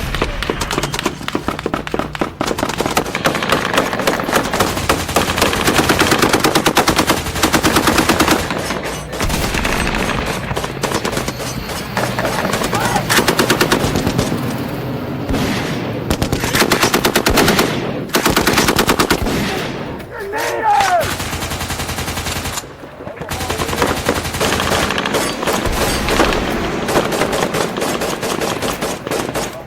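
Motorized Nerf blasters firing in rapid bursts, fast runs of clacking shots from several blasters at once, broken by a few short pauses.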